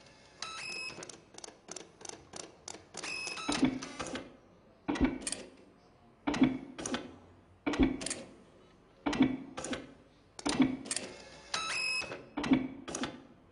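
Recording of dot-matrix printers played as music: bursts of stuttering print-head chatter, some with short pitched whines, set to a beat by a low thump about every second and a half. It plays over loudspeakers in a lecture hall.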